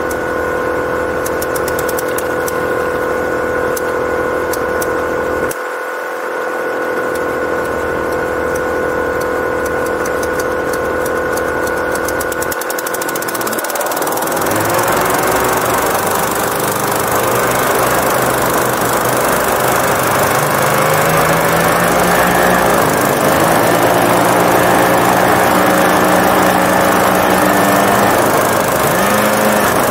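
Small hovercraft's engine and fans idling steadily, then throttling up about halfway through: the engine note rises and wavers under a loud rush of fan air as the craft gets moving over snow.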